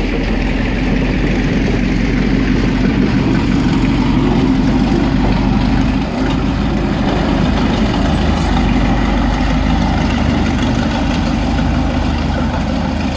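Diesel switcher locomotive's engine running steadily and loudly as it passes close, pushing or trailing a line of passenger coaches that roll by on the track.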